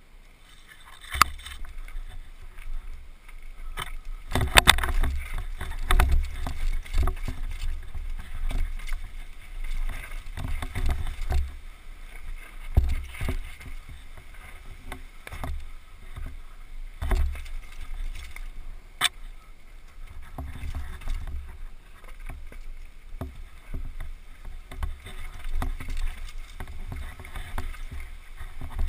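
Downhill mountain bike rattling and knocking over dirt, rocks and roots at speed, heard from a helmet-mounted camera: a constant low rumble with many sharp knocks from hits, the heaviest a few seconds in.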